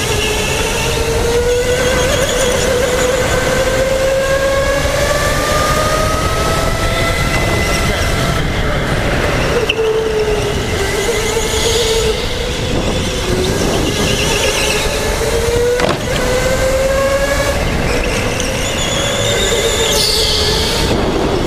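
Electric go-kart motor whining at speed, its pitch climbing for several seconds and then dropping and rising again several times as the kart slows and accelerates, over a steady rumbling noise. A brief high squeal comes near the end.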